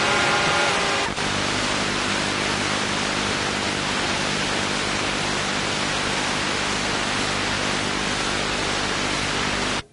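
Loud, steady static hiss from a badly worn VHS cassette's audio track, with a faint hum of steady tones beneath it that changes pitch about a second in. The hiss cuts off suddenly near the end.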